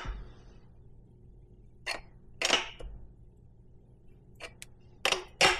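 A wrench working the chain adjuster bolt on a Kawasaki ZX6R's swingarm: a handful of short, sharp clicks and clinks at irregular intervals, the loudest near the end.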